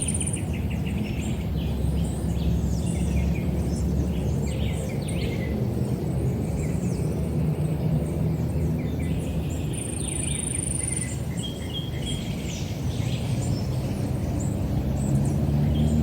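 Many small birds chirping and calling in short, overlapping notes and quick sweeps, over a steady low rumble.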